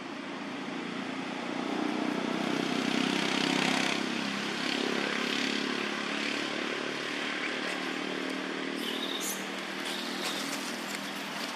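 A motor vehicle's engine humming in the background, growing louder over the first few seconds and then slowly easing off. A few faint short clicks come near the end.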